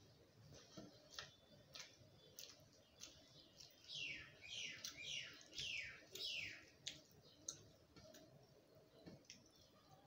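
Faint clicks and smacks of eating by hand, fingers working rice on a metal plate and mouth chewing. About four seconds in, a bird calls a quick run of four falling notes.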